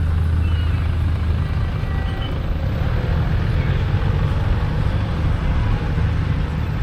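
Steady low rumble of a large engine running, with a constant deep hum under a wash of street noise.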